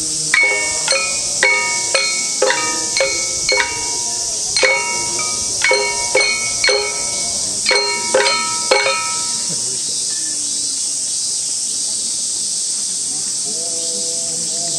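Small hand-held metal gongs struck with a mallet for the Kūya nembutsu dance: about fifteen ringing strokes at an uneven beat, stopping about nine seconds in. A steady high insect drone runs throughout, and chanting voices start near the end.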